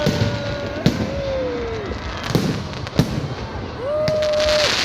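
Fireworks going off in the open: sharp bangs about a second in, at about two and a quarter seconds and at three seconds, with a crackling hiss near the end. Long drawn-out whoops and shouts from revellers rise and fall over the bangs.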